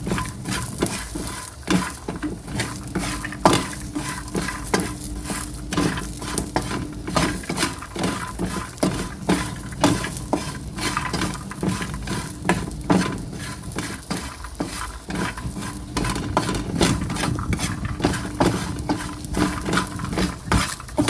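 A spoon stirring and scraping a snack roasting in a pan with salt and oil. It makes a dense, irregular run of scrapes and clicks over a faint sizzle, and the stirring keeps the snack from burning.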